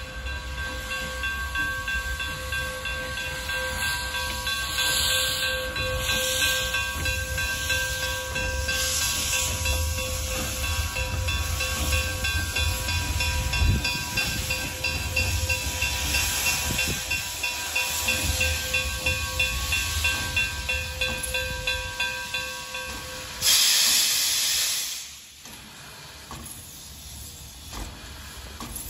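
Morehead & North Fork No. 12, an 0-6-0 steam locomotive, hissing steam steadily over a low rumble. About 23 seconds in comes a sudden, much louder blast of steam hiss lasting a second or two, then the sound drops away quieter.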